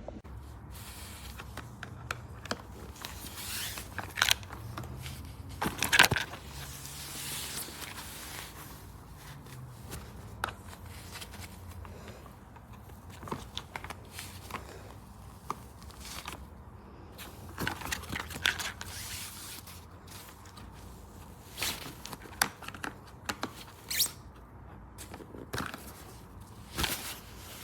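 Scattered scrapes, rustles and clicks, like objects and fabric being handled, with a few sharper knocks about 4, 6 and 24 seconds in.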